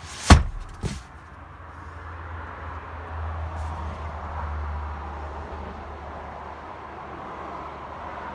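Leather-covered rear centre armrest of a car being folded, landing with a loud thud and then a lighter knock about half a second later. A low rumble follows.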